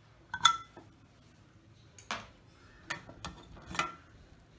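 Aluminium pressure cooker lid being twisted open and lifted off: about five sharp metal clinks and knocks, the loudest about half a second in with a short ring.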